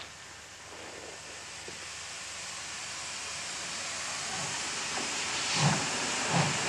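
Ty3-2 steam locomotive getting under way: a steady hiss of steam from the open cylinder cocks, growing louder, with slow exhaust chuffs coming in about four seconds in, a little under a second apart.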